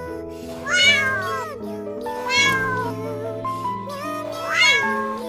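A cat meows three times, each meow rising and falling in pitch, over steady background music.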